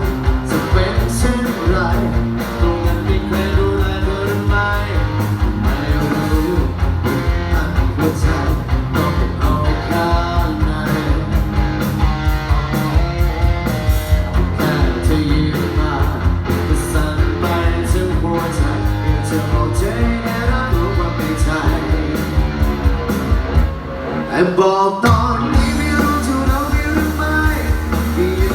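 Live band playing a song through a PA, with singing over drums, bass and guitar. The drums drop out briefly near the end, then the beat comes back.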